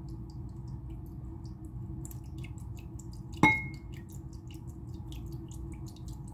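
White wine vinegar trickling from a small glass bottle into a ceramic bowl of dry seasoning, with faint drip-like ticks. A single clink about three and a half seconds in rings briefly, over a steady low hum.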